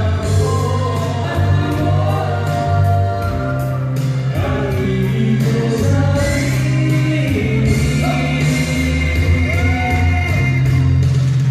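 Male vocal group singing live into microphones over backing music with a steady bass line, amplified through PA speakers.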